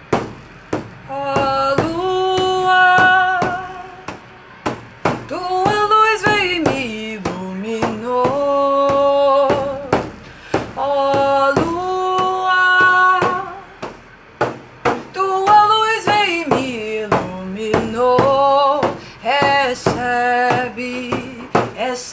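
Singing with long held notes that waver and glide slowly up and down, with no words picked out, over sharp percussive taps.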